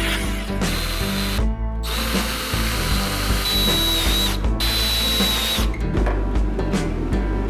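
A power drill running with a high steady whine, cut off sharply twice, over background music with a steady bass.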